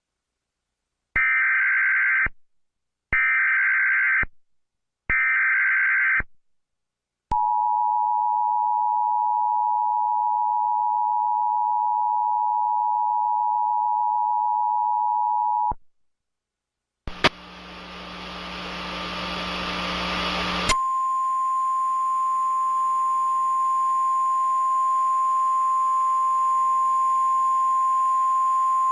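Emergency Alert System tornado-warning tones: three short bursts of the SAME digital header, then the two-tone EAS attention signal held for about eight seconds. After a brief gap a hiss rises, and about twenty seconds in a single steady tone, the NOAA Weather Radio warning alarm tone, starts and holds over the hiss.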